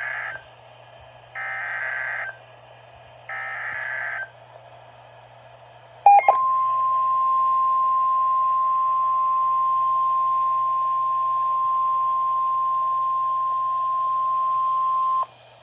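NOAA Weather Radio EAS alert: three short buzzy SAME header data bursts about a second apart, then a click and the single steady 1050 Hz warning alarm tone held for about nine seconds before cutting off sharply, the signal that a warning message follows. A low hum runs underneath.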